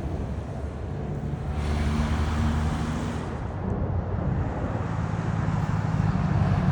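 F-16 fighter jet engine rumble that slowly grows louder, with a brighter, hissier stretch from about one and a half to three seconds in.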